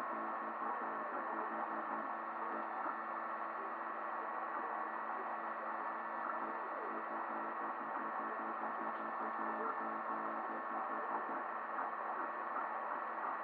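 FDM 3D printer running mid-print: a steady hum with several held tones from its hotend cooling fan and stepper motors.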